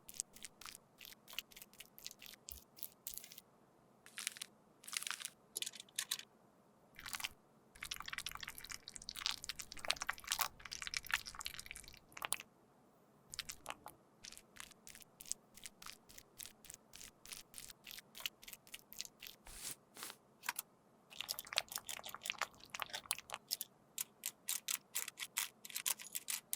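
Broken makeup foundation being worked in a repair: irregular crisp crunching, scraping and tapping strokes, many short clicks with denser scratchy runs about a third of the way in and again near the end.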